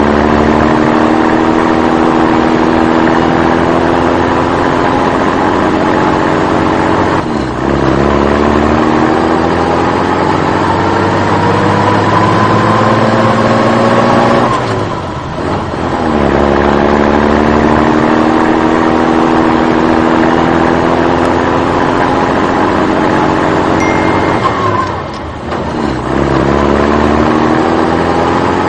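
Engine sound of a heavy vehicle, its pitch rising slowly over several seconds, then dropping back and climbing again, three times over.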